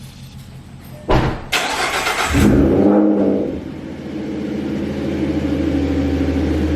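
A car's V6 engine being started: the starter cranks for about a second, the engine catches and flares up in revs, then settles into a steady idle.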